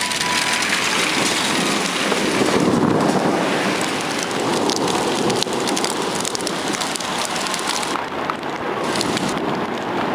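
Heavy rain pouring steadily, with many small sharp ticks of drops striking hard surfaces.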